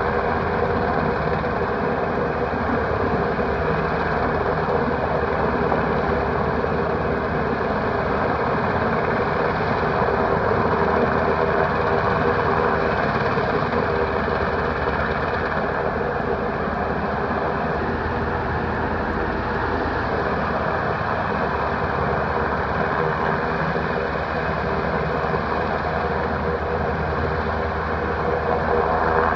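UH-60 Black Hawk helicopter hovering, its rotor and turbine engine noise loud and steady throughout.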